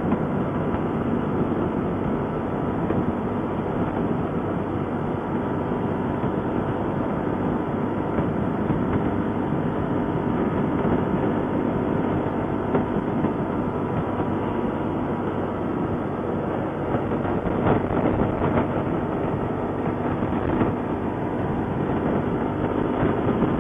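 ATV running at a steady pace along a trail, with engine noise and a constant rattle and rumble, plus a couple of knocks about eighteen seconds in.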